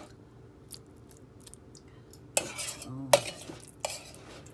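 Light clicks and clatter of plastic food containers being handled, with a louder scraping rustle about halfway through and a sharp knock just after it.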